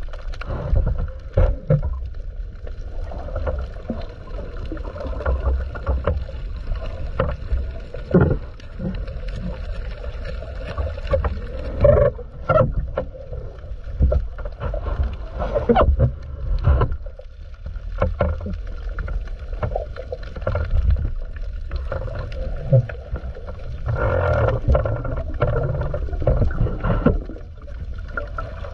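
Water moving against an underwater camera's microphone: a constant low rumble with irregular knocks and swells of sloshing.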